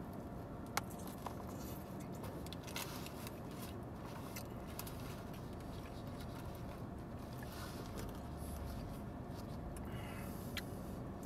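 Steady low hum of a car cabin, with a few faint clicks and rustles from eating a taco out of its foil wrapper.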